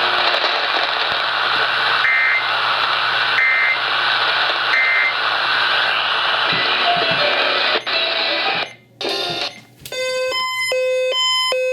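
Steady radio static hiss carrying three short EAS end-of-message data bursts, about 1.3 seconds apart, that close the relayed flash flood warning. The hiss cuts out about nine seconds in, and near the end a quick series of electronic beeps steps between pitches.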